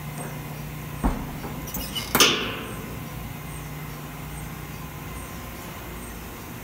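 Steady hum of lab machinery with a faint high tick about once a second. About a second in comes a single thump, and just after two seconds a louder sharp crack that dies away over about half a second.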